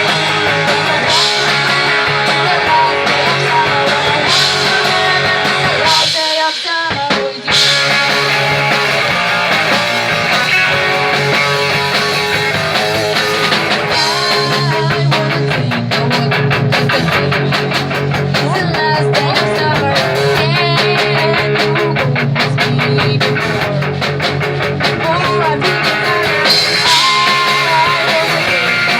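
Punk rock band playing live, with electric guitar and a drum kit. The band stops briefly about six seconds in, then comes back in; from about halfway through the drums keep a fast, even beat.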